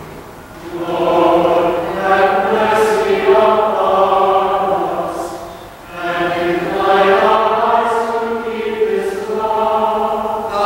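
Choir and congregation chanting the sung response to a commandment of the Decalogue, in two long unaccompanied-sounding phrases with a brief breath about six seconds in.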